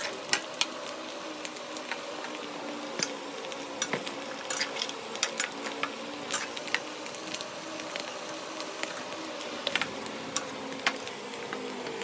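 Boiled potatoes shallow-frying in hot oil in a pan: steady sizzling with frequent sharp crackling pops, as they fry to golden brown.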